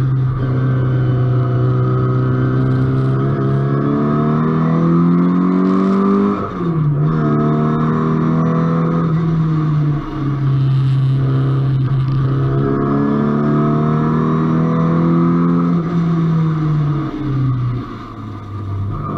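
Car engine heard on board at full throttle on a race track. The revs climb for about six seconds, drop suddenly at a gear change, then climb again. Near the end the revs fall back and the throttle briefly lifts.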